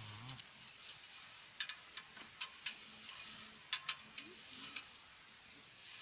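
A hand berry picker (berry combine scoop) raking through lingonberry bushes: a run of short, sharp rasping strokes in quick clusters, with leaves rustling.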